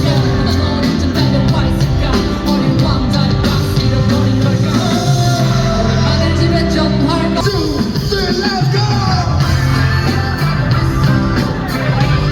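Live pop-rock band music from a concert PA, with singing over drums and bass.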